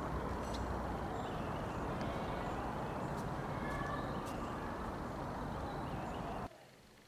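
Outdoor urban ambience: a steady low rumble of wind on the microphone and distant traffic, with faint bird chirps. It cuts off suddenly about six and a half seconds in, leaving a quiet room.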